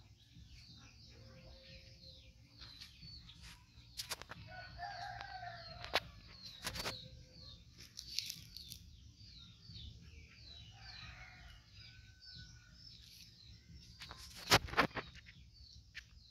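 Small birds chirping throughout, with a rooster crowing about five seconds in. A few sharp clicks break in, the loudest pair near the end.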